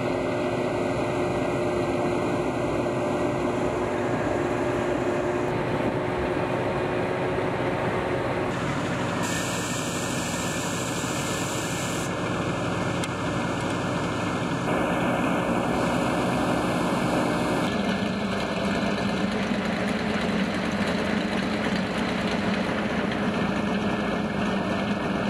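Engine of a Uragan multiple rocket launcher truck running steadily at idle, a continuous low mechanical drone that shifts in tone several times.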